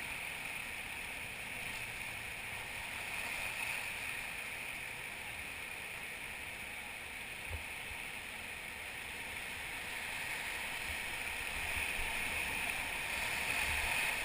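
Whitewater river rushing steadily, growing a little louder near the end, with one faint knock about halfway through.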